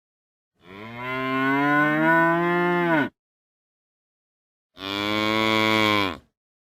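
A cow mooing twice: a long moo of about two and a half seconds that rises slightly in pitch and then falls away, then a shorter moo about two seconds later.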